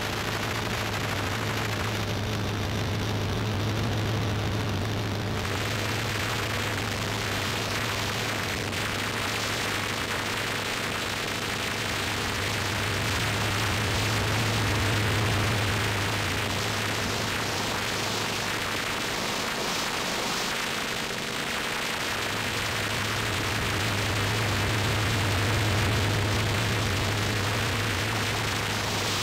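Experimental noise music played live on circuit-bent electronics: a dense wash of static hiss over a low droning hum that swells and fades, dropping out for a couple of seconds about two-thirds of the way through.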